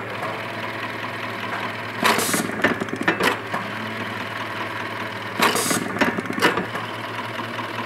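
Siruba BT290 electric button sewing machine with automatic button feeder running through its sewing cycles: a steady mechanical hum, broken about 2 seconds and 5.5 seconds in by a short loud burst with sharp clatter as each button is fed and sewn on.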